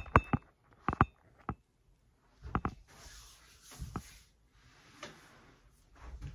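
Handling noises as a leg is lifted onto a massage table: a string of sharp clicks and light knocks in the first few seconds, then a soft rubbing hiss of gloved hands on the leg with a few fainter knocks.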